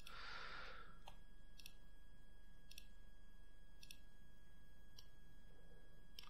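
Faint computer mouse clicks, about six at irregular spacing roughly a second apart, over a steady low electrical hum and a thin high whine. A short soft rush of noise right at the start.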